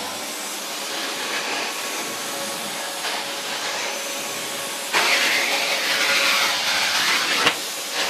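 2002 Numatic Henry HVR200 canister vacuum cleaner running steadily on its single-fan motor. The sound grows louder for about two and a half seconds from about five seconds in, then settles back.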